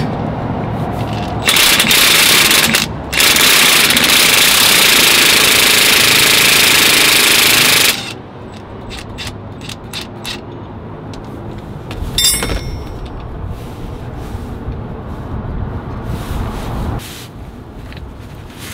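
Cordless impact wrench hammering on a drive shaft bolt as the drive shaft is being unbolted for removal: a short burst about a second and a half in, then a longer run of about five seconds after a brief pause. Afterwards only lighter clicks and knocks of hand tools on metal.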